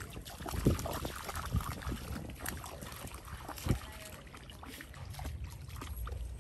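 A dog wading through a shallow creek, its legs splashing and sloshing the water in irregular bursts. A couple of low thumps stand out, the strongest just before four seconds in.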